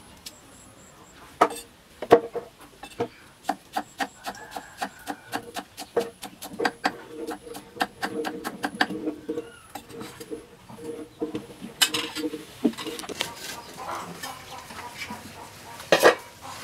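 Cleaver chopping garlic and ginger on a wooden stump chopping block: a run of sharp knocks, about three a second, with a louder clunk near the end.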